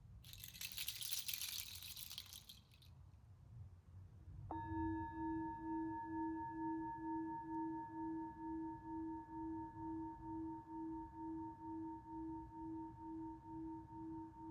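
A brief high rattle, then about four and a half seconds in a singing bowl is struck once and rings on with a steady wavering pulse, about two to three beats a second.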